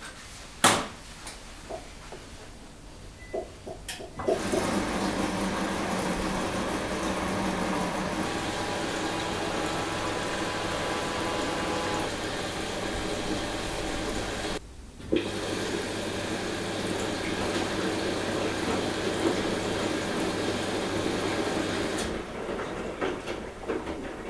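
Bosch front-loading washing machine drawing in water at the start of a delicate wash: a steady rush of inflowing water begins about four seconds in, after a sharp click near the start, breaks off once briefly, and dies away near the end.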